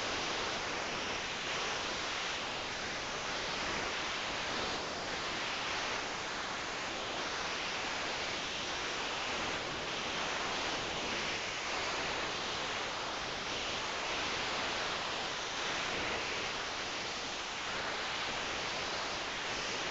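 Steady, even hiss with faint, slow swells in loudness every few seconds.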